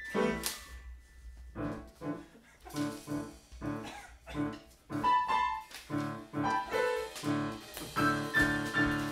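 Piano played in short, detached chords, struck again and again at uneven spacing, with a brief rising sweep right at the start.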